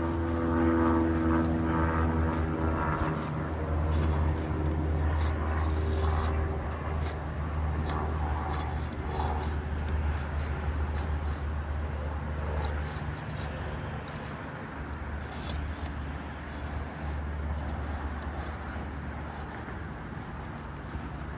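A steady low hum, engine-like, runs throughout, with a few scattered scrapes and taps as an asphalt roof shingle is pried loose with a roofing hammer and shingle ripper.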